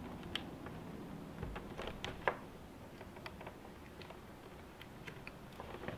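Faint clicks and light handling noise of a micro USB power plug being fitted into the socket of a Raspberry Pi in a 3D-printed plastic case, over a low steady room hum.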